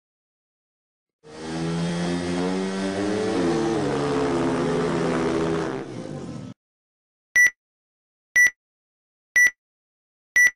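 For about five seconds, an engine-like revving sound effect with a slightly rising pitch. It cuts off and is followed by four short high beeps, one a second: a film-leader countdown.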